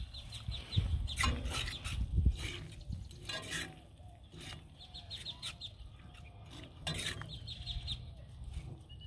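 Onions and mushrooms being stirred in a cast iron skillet over a charcoal grill, with a few sharp scrapes and knocks of the utensil against the pan. Birds chirp and call in the background, with a rapid high trill.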